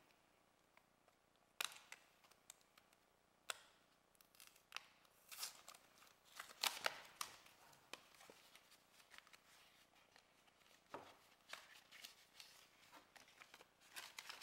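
Cardboard product box being opened by hand: two sharp clicks about one and a half and three and a half seconds in as the flap comes free, then bouts of scraping and rustling as the card and the inner tray slide out.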